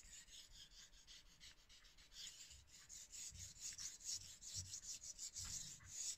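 Faint, quick strokes of a steel kitchen knife blade rubbing back and forth on a Naniwa Homestone 1000/3000 combination whetstone during freehand sharpening, each stroke a short hiss, with a few soft low knocks between them.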